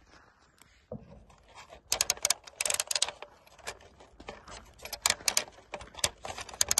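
An irregular run of sharp mechanical clicks and rattles, sparse at first and thickening from about two seconds in.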